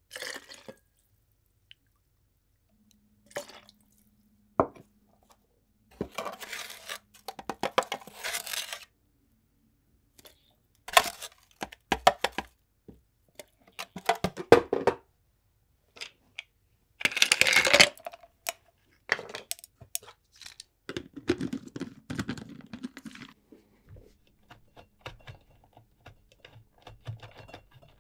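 Drink-making sounds in separate bursts: ingredients poured and spooned into a plastic blender jar over banana chunks, with small clinks and knocks of cups and the jar. The loudest burst comes about two-thirds of the way through, and softer clicks near the end.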